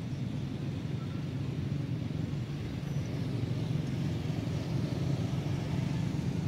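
Steady road-traffic rumble, with a passing vehicle swelling louder about four seconds in.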